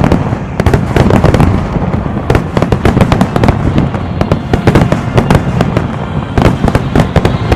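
Aerial fireworks bursting in a rapid, dense barrage of sharp cracks and booms that overlap with no gaps, over a continuous low rumble.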